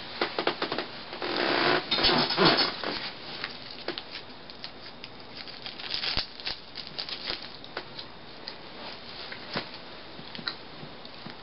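Rustling and shuffling on a bed for the first few seconds, then scattered small crinkles and clicks as a snack packet is handled and opened.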